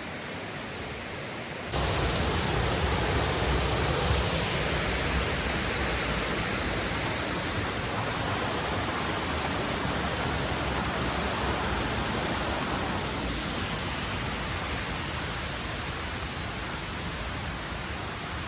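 Mountain stream water rushing and falling over rocks, a steady hiss that jumps louder about two seconds in.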